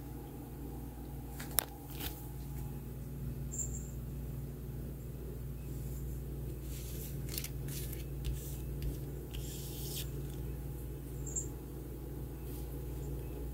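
Oracle cards being handled on a cloth-covered table: a few short scratchy rustles as the cards are touched and slid, and one sharp click about a second and a half in, over a steady low hum.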